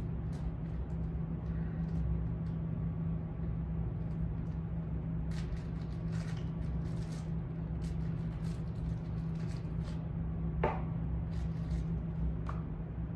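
A steady low hum, with light clicks and rustles of small items handled on a desk and a couple of sharper ticks near the end.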